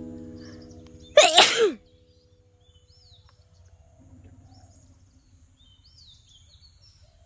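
One loud human sneeze about a second in, with a falling voiced 'choo'. It comes from someone with a head cold.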